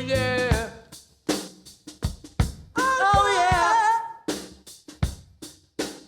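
Drum kit playing sparse snare and bass-drum strokes with near-silent gaps between them, as if heard on its own. A sung note fades out in the first second, and a short sung phrase comes in about three seconds in.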